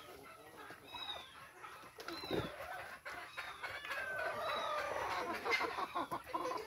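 Domestic chickens clucking and calling as they feed on a split coconut, with many short high chirps and a busier run of calls a little past the middle.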